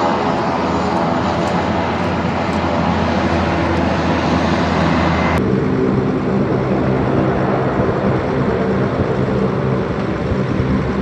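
Four turboprop engines of a C-130H Hercules running at taxi power: a loud, steady propeller drone with a hum of steady tones over a hiss. About five seconds in, the sound shifts abruptly to a closer, steadier drone with less hiss.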